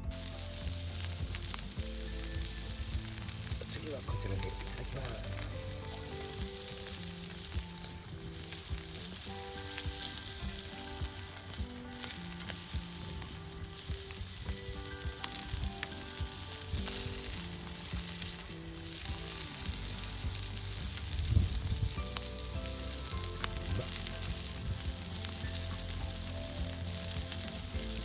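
Pieces of meat sizzling and frying in an iron pan over a wood fire, with soft background music underneath. A single sharp knock about two-thirds of the way through.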